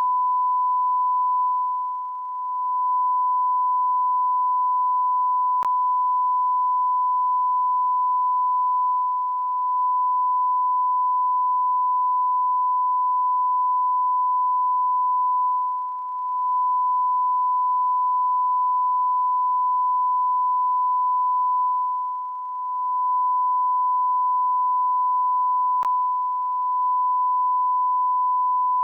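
A continuous electronic beep: a single pure sine tone held steadily without a break, dipping briefly in loudness a few times.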